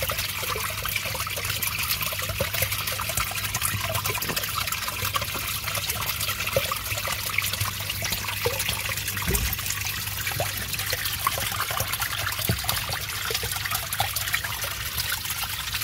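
Water running steadily into a shallow turtle tank from a filter outlet, a continuous trickling and splashing, with a low steady hum underneath.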